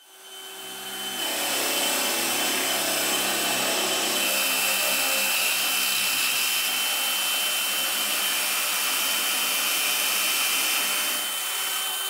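DeWalt FlexVolt cordless drill running steadily under load, boring a 1-inch hole into hardwood, with a steady high whine; it builds up over the first second and stops shortly before the end.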